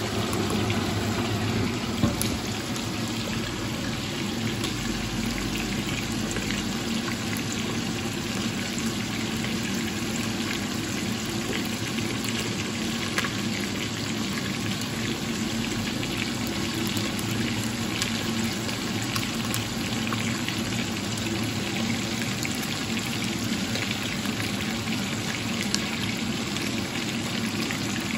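Pot of chicken pieces boiling in water on an electric hob: a steady bubbling hiss over a steady low hum, with a few light clicks.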